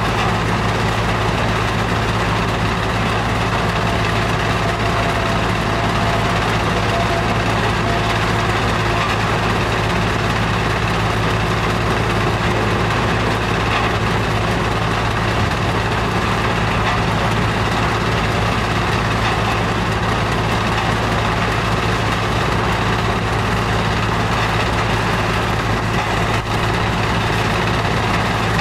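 Powerscreen mobile screening plant running: a steady diesel engine hum under the broad, even noise of the screen and conveyors working.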